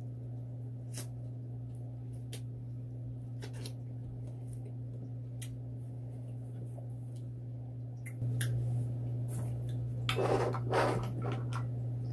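Close-miked eating sounds: scattered wet mouth clicks and smacks while chewing corn on the cob, over a steady low hum that gets louder about eight seconds in. A louder scuffling noise comes about ten seconds in.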